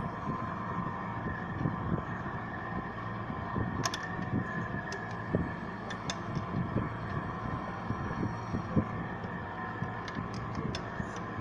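Steady mechanical hum with a few scattered clicks and knocks.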